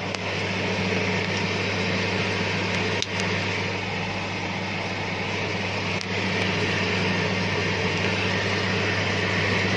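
Steady electric hum with an even hiss of air from a grease oil-separation test apparatus and the air pump feeding its pressure system. Two faint clicks come about three and six seconds in.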